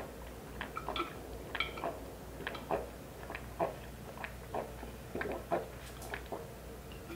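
A person gulping down water from a glass jar in one long chug: a steady run of swallows, about two a second.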